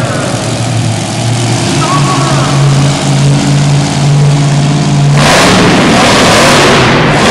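Monster truck engine running with a steady low tone. About five seconds in, a much louder rushing noise takes over as the truck rears up on its back wheels.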